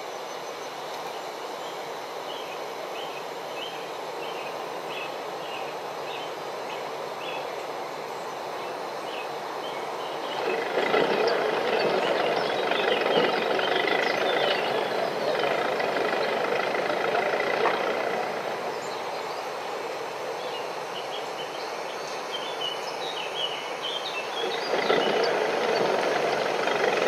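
Added ambient sound effects laid over silent footage: a steady background noise with faint short chirps, then from about ten seconds in a louder street and vehicle noise. It eases off for a while and rises again near the end.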